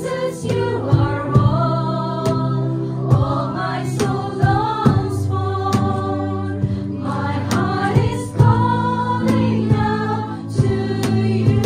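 Live worship music: several women singing a praise song together through microphones, over sustained keyboard chords and a low bass, with regular percussion hits.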